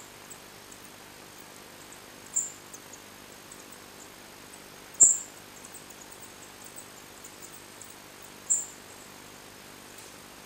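Short high-pitched chirps, three in all about three seconds apart, with faint fine ticking at the same pitch between them.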